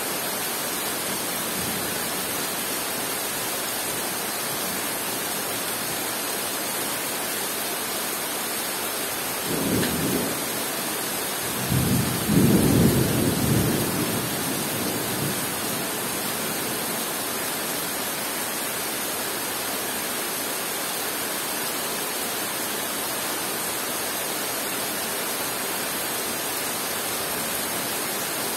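Steady rain falling on forest foliage, with two rolls of thunder: a short rumble about ten seconds in, then a louder, longer one about two seconds later that fades out over a few seconds.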